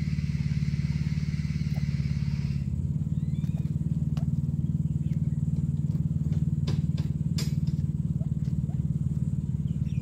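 A steady low mechanical hum, like a motor running, goes on throughout, with faint short chirps and a few light clicks over it. A higher hiss stops abruptly about two and a half seconds in.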